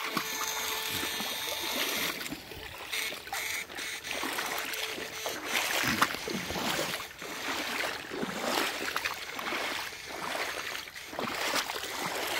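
Shallow river water running over stones, with irregular splashes of feet wading through it.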